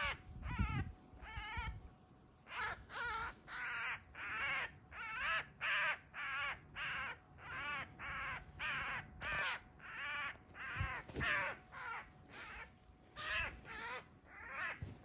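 Eurasian magpie squawking harshly over and over in distress while held down by a sparrowhawk, about two short wavering calls a second, with a brief lull before the calls speed up. A couple of low thumps come from the struggle.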